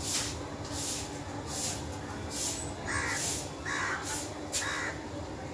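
A broom sweeping a paved concrete courtyard in regular swishing strokes, about one to two a second. Crows caw four times, starting about three seconds in.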